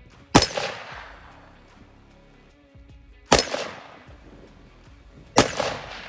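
Three rifle shots from an AR-15 with a .223 Wylde upper and 18-inch barrel, firing 55-grain hollow points: the first about three seconds before the second, the third two seconds later. Each sharp crack is followed by an echo that fades away over about a second.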